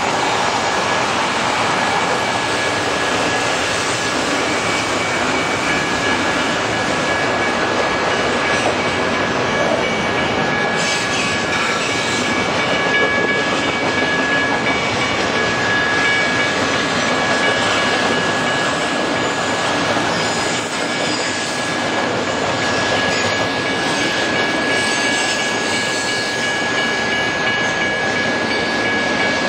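Double-stack container freight train rolling steadily past, a continuous rumble and clatter of railcar wheels on the rails. Two thin steady high tones sound over it through much of the passage.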